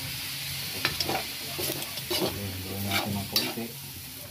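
Octopus pieces sizzling in an aluminium wok while a metal ladle stirs them, with a steady frying hiss broken by several sharp scrapes and clanks of the ladle against the pan.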